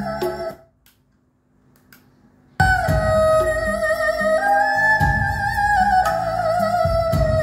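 Instrumental music with a sustained, wavering melody over a steady beat, played through a Sharp VO-300SA mini amplifier and speakers. It fades out about half a second in, then after about two seconds of near silence another track starts abruptly and plays on.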